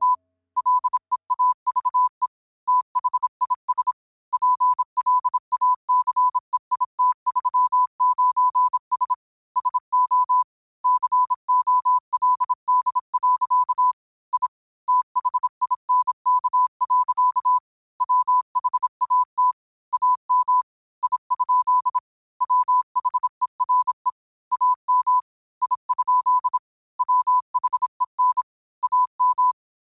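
A single high, steady electronic beep tone switched on and off in an irregular pattern of short and long beeps with brief gaps.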